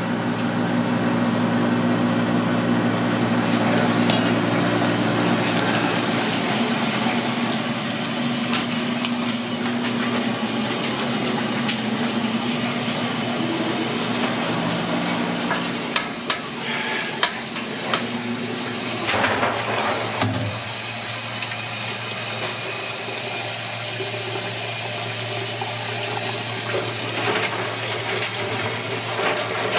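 Steady rushing of a large stockpot boiling on a gas range over a low hum, with a few sharp clinks of a wire strainer against the metal pot about halfway through. Near the end, tap water runs into a steel sink.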